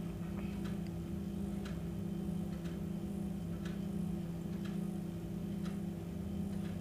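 A clock ticking about once a second over a steady low hum.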